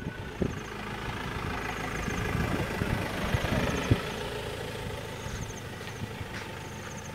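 A vehicle engine running steadily under way, with road noise, and a couple of sharp knocks, the loudest about four seconds in.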